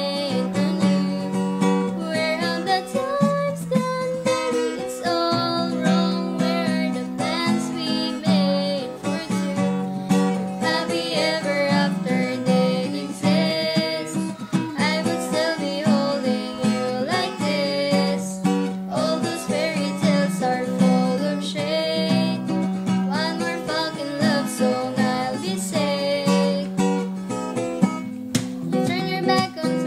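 Acoustic guitar strummed, with a voice singing over it.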